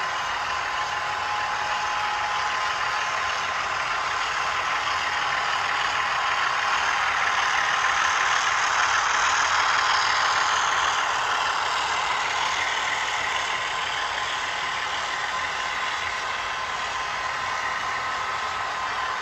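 HO scale model freight train rolling past on the track: a steady running noise of wheels on rail and the locomotive's motor, with a faint steady whine. It grows louder around eight to ten seconds in as the locomotive passes closest.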